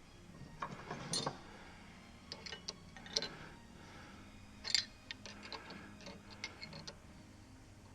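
Enco 3-ton ratcheting arbor press being worked by hand: irregular runs of sharp metallic ratchet clicks in several short groups.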